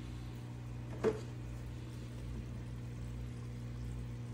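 Steady low hum of aquarium equipment in a room full of running tanks, with a single light knock about a second in.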